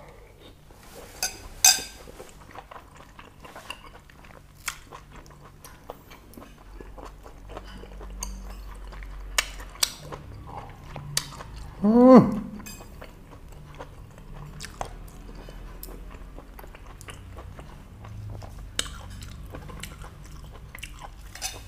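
Close-up chewing and mouth clicks of a person eating boiled pork intestines and raw cabbage, with occasional clicks from utensils. About halfway through there is one short, loud vocal sound with a falling pitch.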